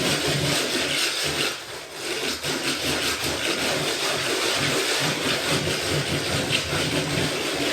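Plastering trowel scraping and rubbing bark-beetle textured decorative plaster across a wall in repeated strokes, with a brief pause about two seconds in.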